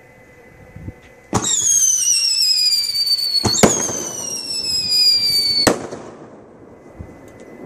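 Two whistling fireworks (whistling blasters), each a shrill whistle that falls slowly in pitch for about two seconds. A sharp bang a little over a second in starts the first whistle, a second bang cuts it off as the next begins, and a third bang ends the second whistle.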